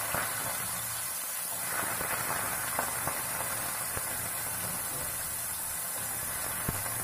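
Diced potatoes frying in hot ghee in a kadhai: a steady sizzling hiss with a few faint scattered pops.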